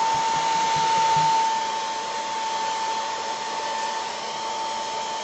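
Hand-held hair dryer blowing steadily, a rush of air with a steady whine, drying fresh paint on a ceramic piece. It gets a little quieter after about a second and a half.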